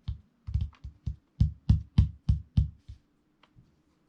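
A quick run of about a dozen dull knocks or taps on something hard over about three seconds, coming roughly three a second toward the end, then stopping, over a faint steady hum.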